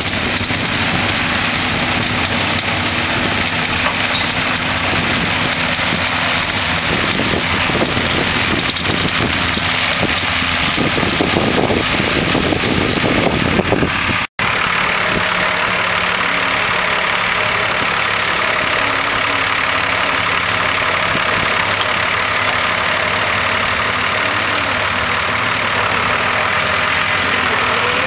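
John Deere tractor's diesel engine running steadily at idle, with a rushing noise over it in the first half. After a brief dropout about halfway through, the engine idles with a steady hum.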